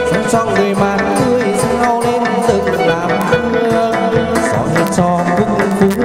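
Chầu văn ritual music: a traditional Vietnamese ensemble playing, with a bamboo flute carrying a bending melody over a steady drum beat and sharp, repeated percussion strikes.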